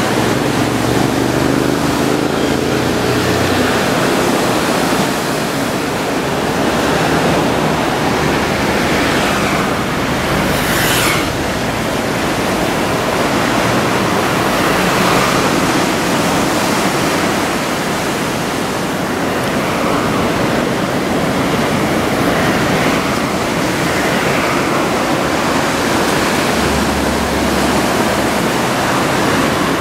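Heavy surf from big typhoon swell, a loud steady wash of breaking waves, with a short sweeping whoosh about eleven seconds in.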